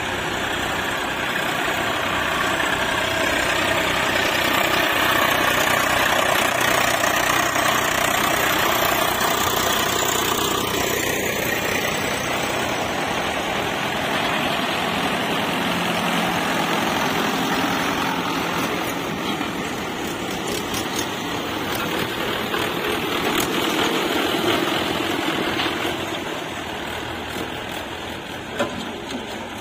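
Tractor diesel engine running steadily, easing off a little near the end, with a few sharp clicks.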